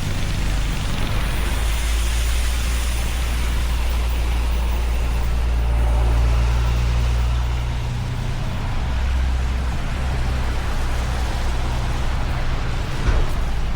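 Road traffic on a wet street: a heavy vehicle's engine rumbling low and steady under the hiss of tyres, the rumble easing about eight seconds in, with a single short knock near the end.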